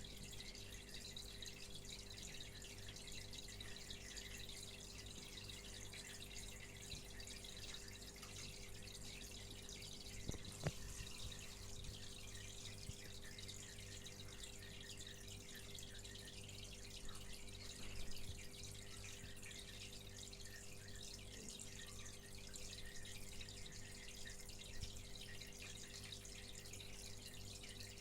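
Aquarium filter running: a faint steady hum with water trickling and dripping, and a couple of small knocks.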